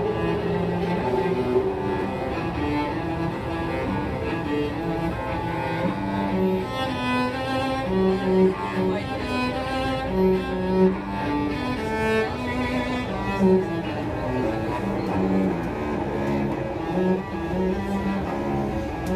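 Solo cello being bowed, playing a melody of held notes broken by quicker runs of notes.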